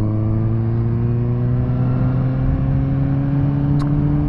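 Suzuki GSX-S750's inline-four engine running under steady throttle, its pitch rising slowly as the bike gathers speed in gear.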